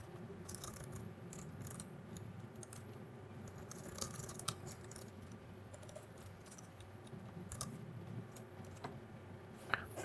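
Typing on a computer keyboard: soft, irregular key clicks over a faint steady hum, ending with a louder knock.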